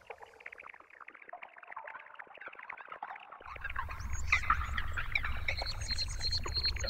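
Outdoor marsh ambience full of short, dense bird chirps. About three and a half seconds in, a steady low rumble sets in, and a little later a high-pitched chirp starts pulsing several times a second.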